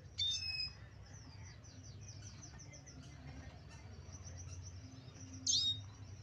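Male red siskin twittering steadily, with two loud, sharp chirps, one right at the start and one near the end, over a low steady hum.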